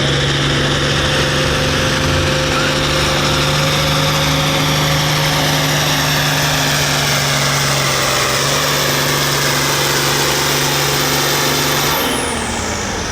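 Turbocharged farm stock diesel tractor pulling under full load, engine running steady with a high turbo whine. About twelve seconds in the throttle comes off: the engine note drops and the whine falls away as the turbo spools down, the end of the pull.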